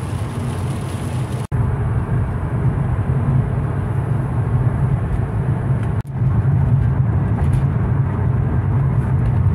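Steady road and engine rumble of a moving car, heard from inside the cabin, broken by two abrupt cuts about a second and a half in and about six seconds in.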